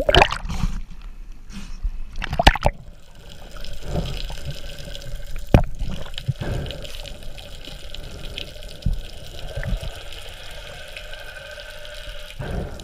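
Underwater sound through an action camera's housing as a freediver dives: loud bubbling and splashing of water near the start, then a muffled steady rush of water with scattered sharp clicks, one strongest about five and a half seconds in.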